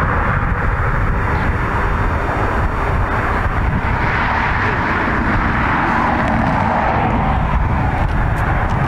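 Boeing 757-200 jetliner on final approach, its engines making a steady rushing jet noise over a low rumble.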